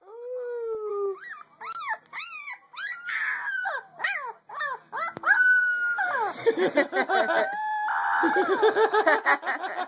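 Young husky-type puppy howling and whining: a long first call, then a string of short rising-and-falling yips. Later the calls run together and get louder.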